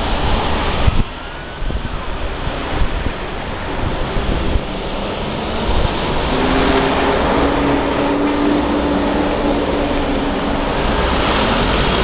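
Continuous noise of road traffic at a busy level crossing. From about six seconds in, a low steady hum joins it and lasts until near the end.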